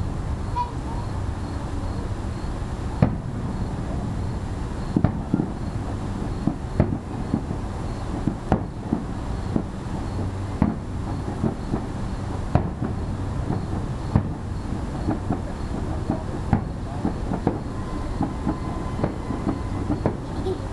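Aerial fireworks shells bursting: sharp bangs at irregular intervals, a loud one about every two seconds with smaller pops between, over a steady low rumble.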